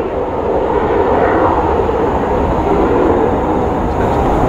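Kawasaki T-4 jet trainers taking off, their twin turbofan engines at takeoff power in a loud, steady jet roar.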